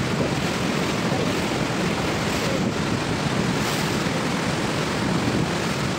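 Rhine Falls waterfall and the churning whitewater at its foot, a steady rushing heard from a boat close below the falls.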